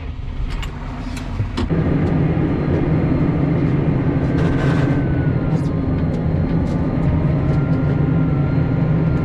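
Farm loader tractor's engine speeding up about a second and a half in, then running steadily under way, with a faint thin whine above it that drifts up and down.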